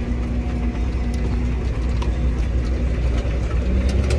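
John Deere 8430 tractor's diesel engine running steadily with a low drone while working a Salford tillage tool through the field, with light clicking and rattling from the machinery.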